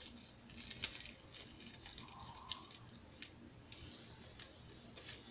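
Faint, scattered clicks and rustles of a packaged hair bundle being handled.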